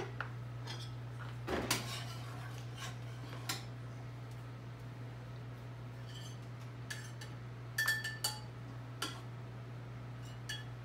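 A serving spoon clinking and scraping against a cooking pot, a frying pan and a ceramic plate as sauce is served out: a few scattered clinks, one with a short ring about eight seconds in, over a steady low hum.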